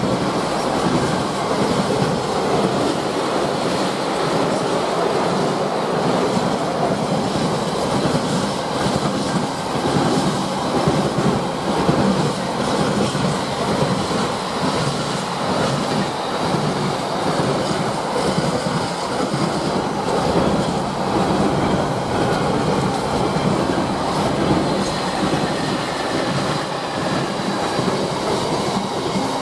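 Intermodal container freight train's flat wagons rolling past at speed: a steady, loud rumble of steel wheels on rail, with a faint high-pitched ring above it.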